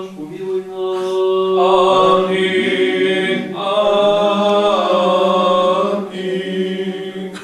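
Orthodox liturgical chanting: voices sing a slow melodic line over a steady held low note, and the chant ends at the very end.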